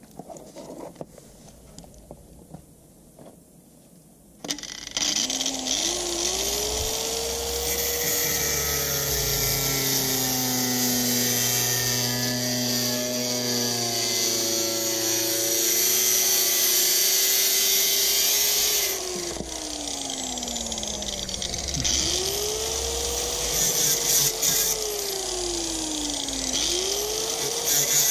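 Angle grinder starting about four seconds in and spinning up to a high whine. Its pitch sags and recovers as the disc bears on the sheet steel of a Volkswagen T3's lower rear body panel. In the second half it slows and spins back up twice.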